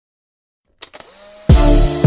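Silent at first, then a faint quiet intro, and electronic background music comes in fully about a second and a half in, led by a deep kick drum.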